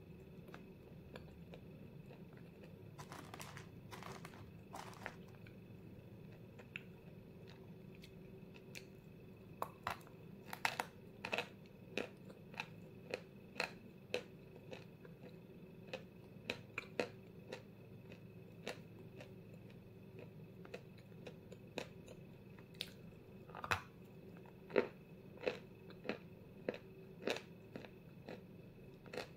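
Close-miked biting and chewing of dry white chalk ('Zefirka' chalk from Vasilpolye): crisp crunches at irregular intervals, the loudest bites about ten seconds in and again about twenty-five seconds in.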